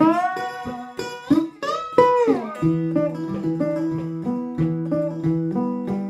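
Three-string biscuit tin cigar box guitar played delta-blues style: notes glide up at the start and one glides down about two seconds in, then a steady, repeating picked bass riff.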